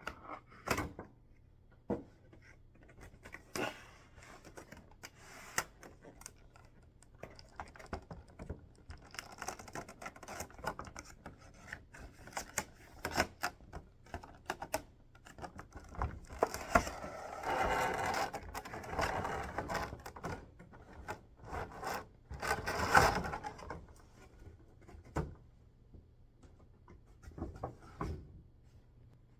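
Hands unpacking and handling a boxed collectible figure: scattered clicks and taps of parts and packaging, with longer spells of rustling and scraping a little past the middle.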